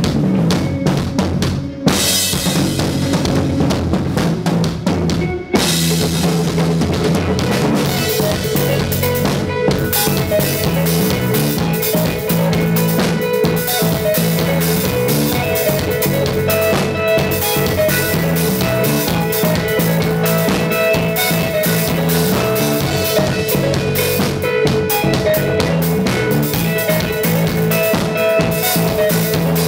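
Live rock band of electric guitar, electric bass and a Yamaha drum kit playing loud. Heavy drum and cymbal hits land about two and five seconds in, then the band settles into dense, driving playing with held guitar notes over the drums.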